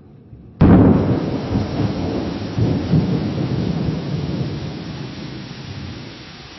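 Lightning strike: a sudden loud crack about half a second in, followed by thunder rumbling with a couple of swells and slowly fading away.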